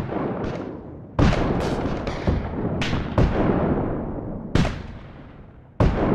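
Battle sound effect of cannon and musket fire: a string of sharp shots and booms at irregular spacing, about eight in six seconds, each trailing off in a long rolling echo.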